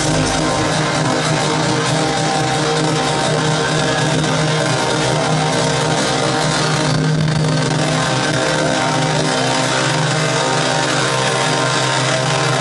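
Loud electronic dance music from a DJ set played over a club sound system, with a steady held bass line under a dense mix. The highs thin out briefly about seven seconds in.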